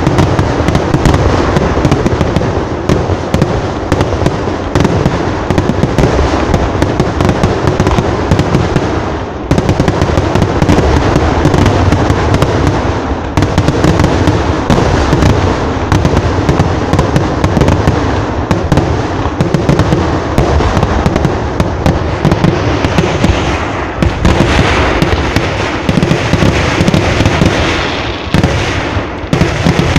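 A dense, unbroken barrage of fireworks: rapid, overlapping bangs and crackles going off many times a second without a pause.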